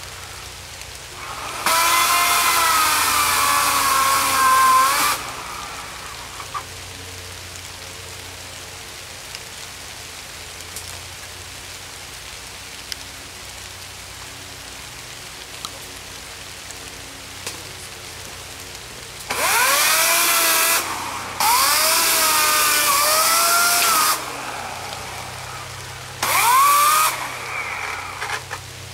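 Greenworks 18-inch, 14.5-amp corded electric chainsaw running in short trigger bursts of a few seconds, a motor whine that sags in pitch as the chain cuts into wood. One burst comes about two seconds in and three come close together in the last ten seconds, each starting and stopping abruptly.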